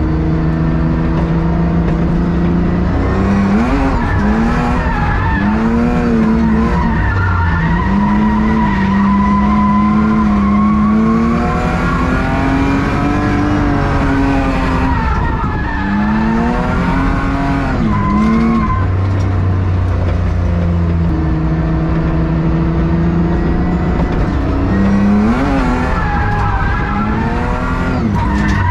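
BMW E36's engine revving up and dropping back again and again during drift runs, loud because half of its exhaust is missing, with tyre squeal as the car slides.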